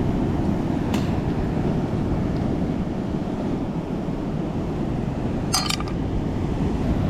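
Steady surf and wind on the microphone, with a light click about a second in and a brief clatter of clinks about five and a half seconds in: cooked mussel shells knocking together as they are handled and opened.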